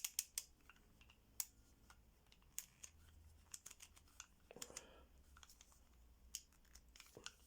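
Light, sparse clicks of a four-wheel combination bike lock's number wheels being turned by hand while a trial code is dialled in: a quick run of clicks at the start, then scattered single clicks.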